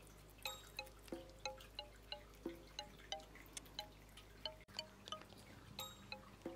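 Soft background music of short, chime-like bell notes picking out a gentle melody, about three notes a second.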